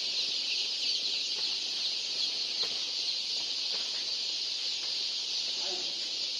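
Steady, high-pitched chorus of many young chicks peeping at once, the calls overlapping into a continuous cheeping.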